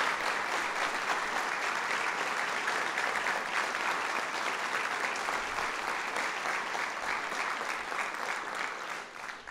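Audience applauding steadily, the clapping fading away over the last second.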